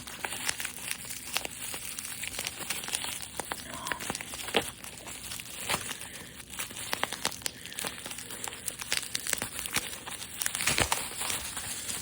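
Hot Wheels blister-card packaging, plastic and cardboard, crinkling and tearing as a car is opened: a continuous run of irregular crackles and sharp clicks, busiest near the end.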